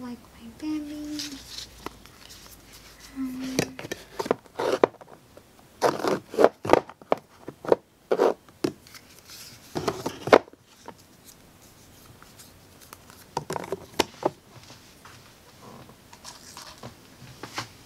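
Makeup products and plastic organizer trays being handled and set into a drawer: a run of clicks, clacks and rustles, densest from about four to ten seconds in, with a few more about fourteen seconds in.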